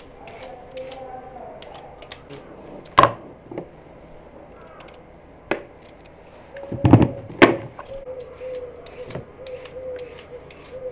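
Hand vegetable preparation with a knife: a run of small sharp clicks and taps, broken by a few louder knocks about three, five and a half and seven seconds in.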